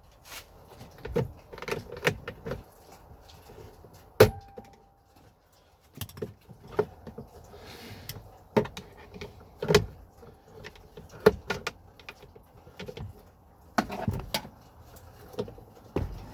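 Plastic dash trim around the glove box opening of a Ford Explorer being pried and worked loose by hand: irregular clicks, snaps and knocks, the sharpest about four seconds in.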